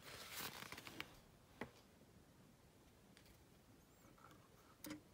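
Near silence, broken by faint handling sounds: a soft rustle of an instruction booklet's pages, then a sharp little click about a second and a half in and another soft click near the end as thermostat wires are worked into the push-in terminal block of an ecobee thermostat's wall base.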